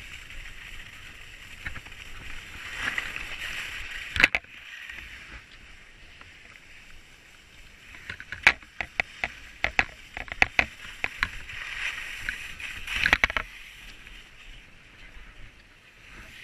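Skis sliding and carving on packed snow: a hiss that swells and fades with each turn. There is a sharp knock about four seconds in and a run of sharp clicks and scrapes a little past the middle.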